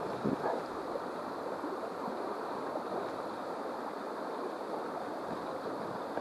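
Steady rush of running water in a trout river's fast run.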